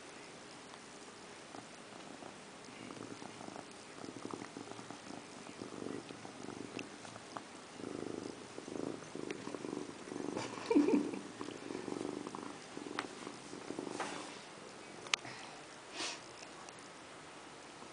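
Domestic cat purring while grooming itself, with licking sounds. The purr comes in low pulses that swell through the middle and fade near the end, followed by a couple of short sharp clicks.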